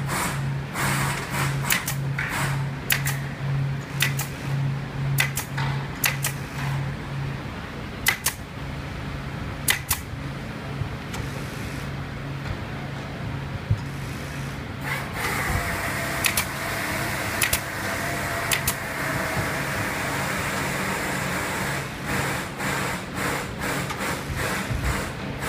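Sharp clicks of a pneumatic staple gun fixing upholstery fabric to a wooden sofa frame, fired singly and in quick runs, over a steady hum of workshop machinery; a higher whine and hiss join about halfway through.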